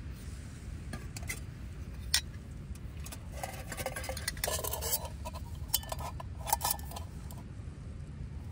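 Metal cookware being handled for boiling water: a series of sharp clinks and knocks, with a ringing metallic rattle in the middle, over a low steady rumble.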